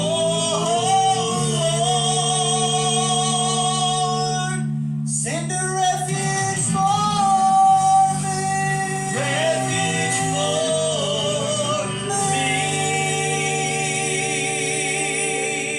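Gospel song with guitar accompaniment: singers hold long notes with vibrato over a steady bass line, pausing briefly about five seconds in before holding the final notes.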